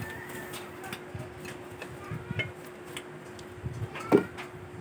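Light clicks and ticks of the metal fill coupler and hose being handled and detached from a PCP airgun's fill port, with one louder knock about four seconds in as the hose is set down. A faint steady hum runs underneath.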